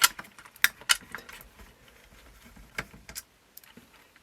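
Sharp clicks and light clatter of plastic cassette-deck mechanism parts being handled, several in the first second and two more around three seconds in.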